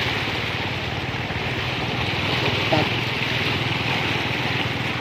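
Small motorbike engine running steadily through floodwater, with a steady hiss of splashing water over it.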